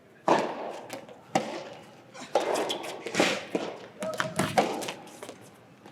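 Soft tennis rally in a large echoing hall: sharp knocks of rackets striking the soft rubber ball and the ball bouncing, five or so in a few seconds, with voices in between.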